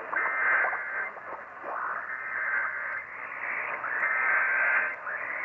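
Emergency Alert System SAME header data bursts received on an AM radio: three bursts of two alternating data tones, each about a second long and about a second apart, through steady radio hiss. They mark the start of a relayed AMBER Alert.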